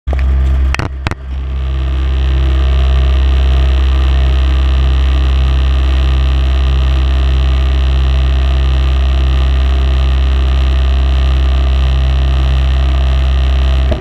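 Skid steer loader's engine running at a steady speed, heard loud from inside the cab, a deep steady drone with a higher whine over it. Two sharp knocks about a second in.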